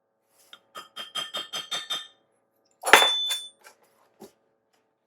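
Kitchen utensils clinking against a bowl: a quick run of about six light, ringing taps, then one louder clink that rings briefly.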